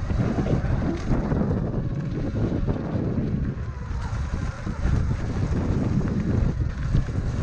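Wind buffeting the camera's microphone while riding a Sur-Ron electric dirt bike along a trail: a steady, rushing low rumble.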